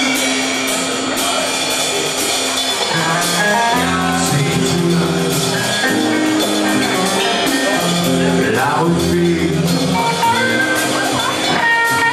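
Rock band playing live: electric guitar and drums, with a male lead singer's vocals. A deep bass part comes in about four seconds in.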